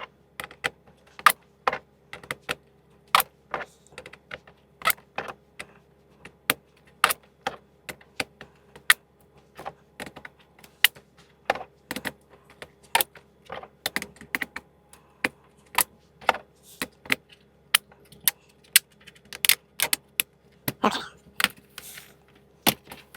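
Metal sockets clicking and clinking as they are set and twisted onto the plastic twist-lock clips of Ernst Socket Boss socket rails: one sharp click after another, irregular, one or two a second.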